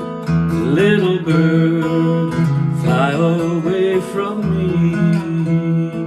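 Music: a strummed acoustic guitar, with a wavering melody line that glides up into its notes about a second in and again near three seconds.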